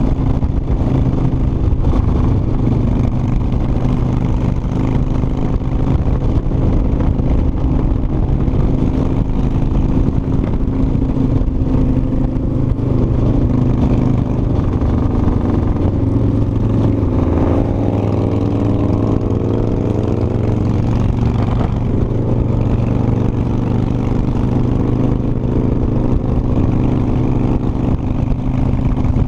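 Cruiser motorcycle engine running at a steady road speed, with wind rumbling on the microphone. The engine note shifts in pitch for a few seconds around the middle, then settles again.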